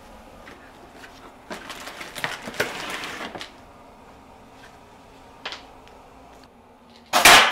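Plastic packaging rustling and crinkling as a new rivet gun is unpacked. Near the end comes a loud, sharp burst of hiss, the rivet gun firing and setting a rivet.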